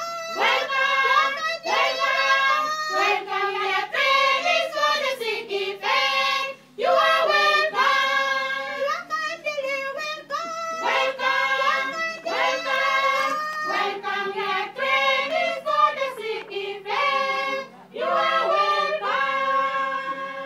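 A group of young women singing a welcome song together in phrases, with two short breaks between phrases.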